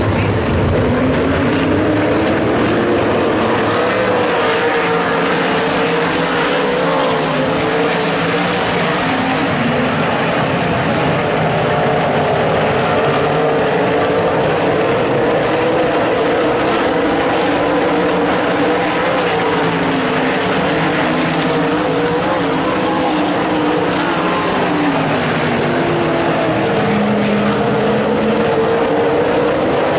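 A pack of limited sprintcars racing on a dirt oval, their V8 engines running hard together. The engine notes rise and fall as the cars accelerate out of the turns and back off into them.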